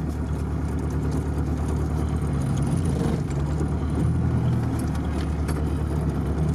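Car engine running steadily at low revs, heard from inside the cabin while the car crawls over rough ground, with a few light rattles.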